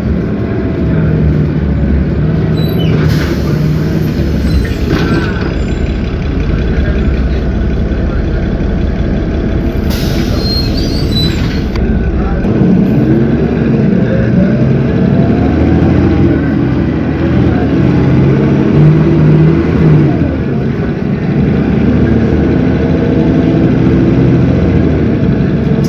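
Cummins ISB 6.7 diesel engine of an Agrale MT17 city bus running, with two loud air hisses from the air brakes, about three seconds in and again about ten seconds in. From about halfway through, the engine pitch rises and falls repeatedly as the bus pulls away under its Allison automatic transmission.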